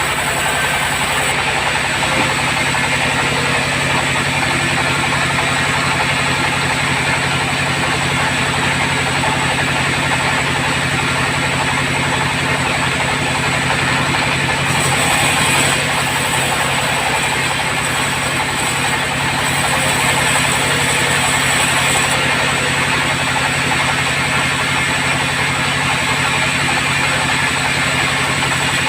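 Bandsaw sawmill running steadily while milling hard acacia timber, its engine giving a constant hum. The pitch of the hum shifts about two seconds in, and a hissier cutting sound rises between about 15 and 22 seconds.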